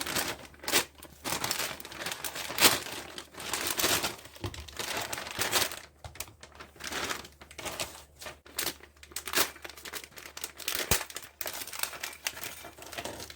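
Plastic packaging being handled and opened, crinkling and tearing in irregular bursts.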